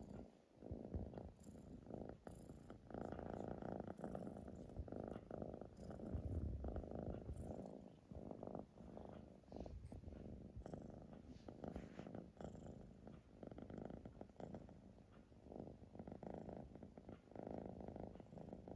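Siamese kitten purring steadily while its chin and neck are stroked, the purr swelling and easing about once a second with each breath in and out.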